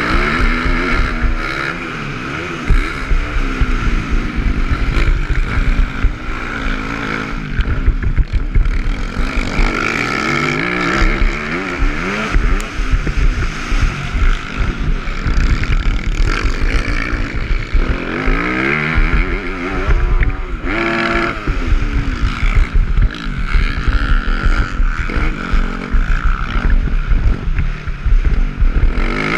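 Motocross dirt bike engine revving up and falling off again and again as it is ridden hard around a dirt track, heard close from the bike's own camera. There is a steady wind rumble on the microphone underneath.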